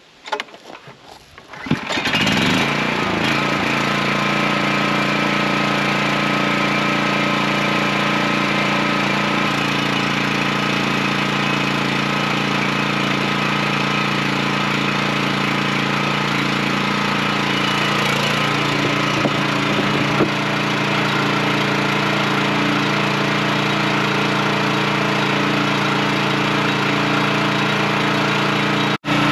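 Old portable gasoline generator pull-started: a few short pulls, then it catches about two seconds in and settles into a steady run at constant speed.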